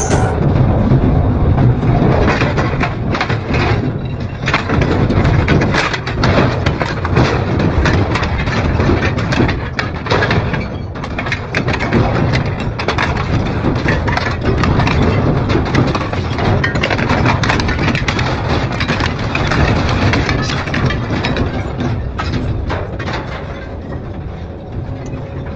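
Double-shaft shredder crunching through material: dense, irregular cracks and snaps over the steady low drone of the machine.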